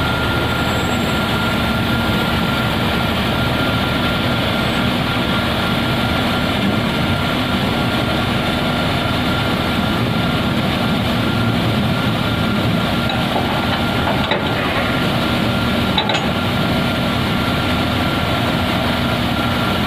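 Steady loud drone of airport ramp machinery around a parked airliner, with a constant high-pitched whine and a lower hum running through it. There are two small clicks late on.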